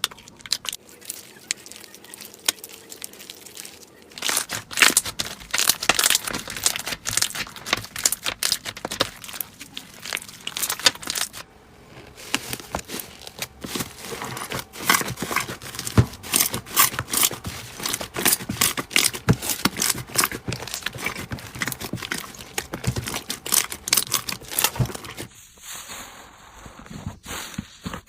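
Crunchy slime being squeezed and pressed, giving dense crackling and popping clicks. It is sparse and quieter for the first few seconds, then becomes steady and loud.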